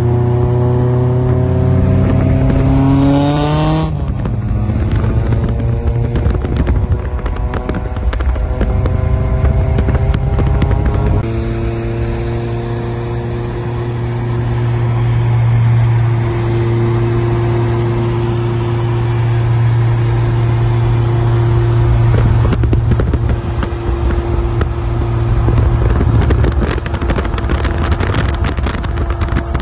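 Modified Honda Civic engine and exhaust accelerating hard, its pitch climbing for about three seconds, then breaking off. From about eleven seconds in it settles into a steady drone at cruising speed.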